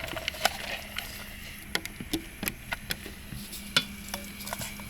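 Irregular sharp clicks and taps from onions cooking in a pot over a wood fire, with a faint steady low hum underneath.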